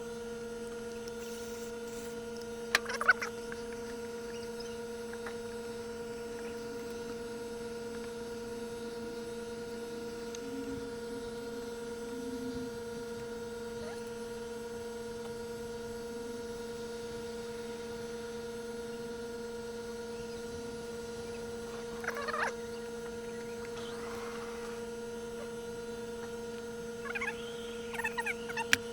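A steady electrical-sounding hum, broken by a few brief knocks and, near the end, a couple of short chirp-like sounds.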